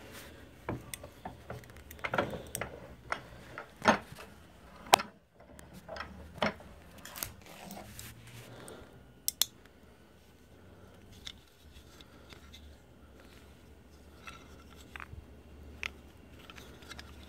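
A steel bench vise being unwound and a 3D-printed ABS part taken out of its jaws, with scattered metallic clicks, knocks and scrapes. The loudest is a sharp knock about five seconds in, and the sounds thin out over the second half.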